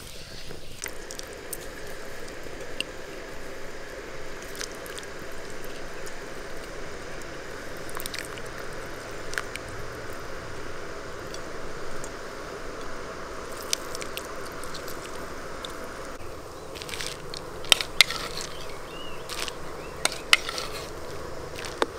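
Food frying in hot oil: a steady sizzle with scattered crackles, and a few sharp clicks near the end.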